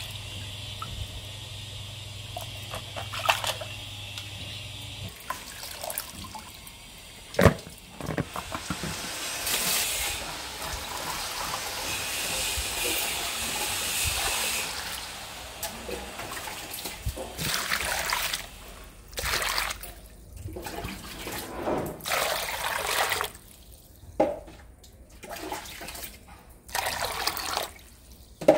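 Water splashing and being poured into plastic basins as cut pomfret pieces are rinsed. A steady pour runs for several seconds from about eight seconds in, followed by shorter on-and-off pours and splashes. A single sharp knock comes about seven seconds in.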